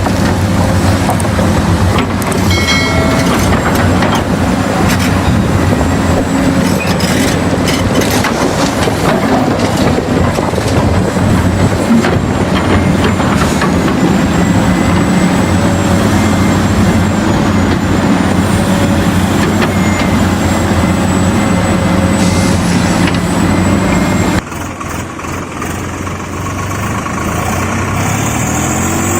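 Heavy diesel machinery engines, from a tractor or excavator working mud, running steadily under load. About 24 seconds in the sound drops to a quieter engine, which revs up and back down near the end.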